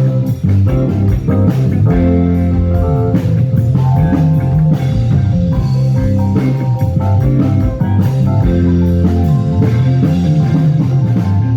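Live band playing an instrumental passage with electric guitar, bass and drum kit at a steady beat.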